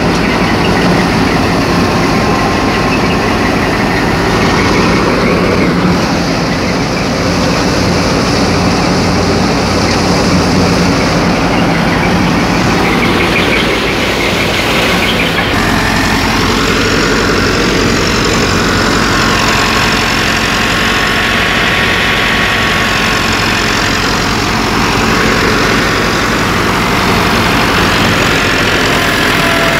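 A wheat thresher running, driven through its PTO shaft and belts by a Massey Ferguson 385 tractor's four-cylinder diesel engine working steadily. The sound shifts abruptly about halfway through, a steady low hum coming in.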